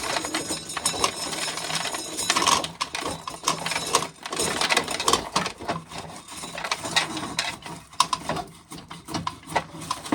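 Corn sheller at work: a fast, uneven rattle and clatter of the mechanism and shelled kernels, with many sharp clicks.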